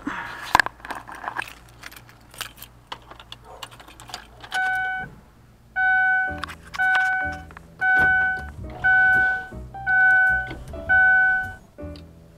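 Keys jangling and clicking, then a car's warning chime dinging about once a second, seven times in a row: the chime of a key in the ignition with the driver's door open.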